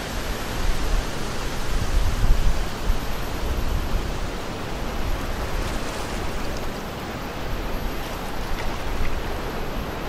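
Wind gusting across the microphone with a low rumble, over a steady wash of small waves against a harbour breakwater.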